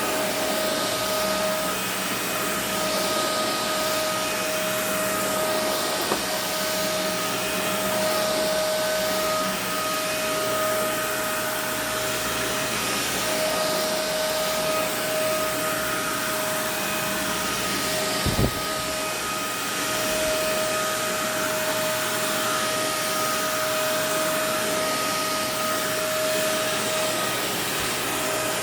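Kenmore Intuition upright vacuum cleaner running steadily, a constant rushing motor sound with a steady whine over it. A short thump about eighteen seconds in.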